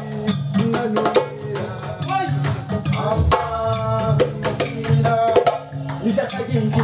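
Live West African drum band: djembes and other hand drums play a fast, dense rhythm over a steady low bass line.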